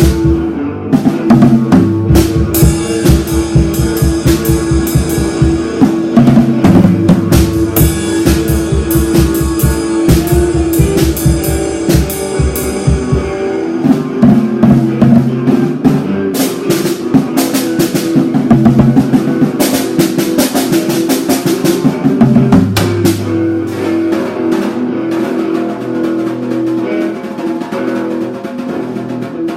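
Rock music with a drum kit and guitar. Fast, steady drumming carries the first half and thins out about halfway through, leaving the guitar and bass notes more to the fore.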